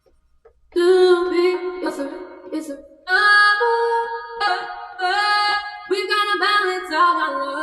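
A female vocal sample playing on its own: sung phrases that step between held notes in short lines, with no drums or bass under it.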